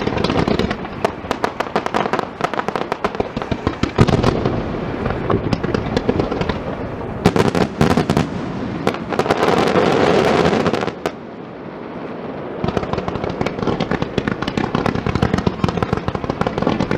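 Computer-controlled starmine fireworks display: rapid volleys of shell bursts and dense crackling, with a stretch of continuous crackle from about seven to eleven seconds in, a short lull just after, then fast bursts again.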